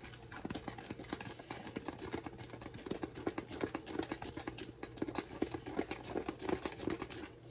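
Brownie batter being beaten by hand in a mixing bowl: rapid, irregular clicks and taps of the mixing utensil knocking against the bowl, several a second.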